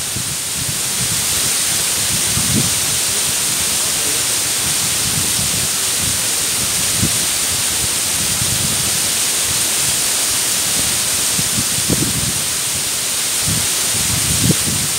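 Mumlava waterfall pouring over its rock ledges into the pool below, a steady, loud rushing of falling water. Short low rumbles come every few seconds.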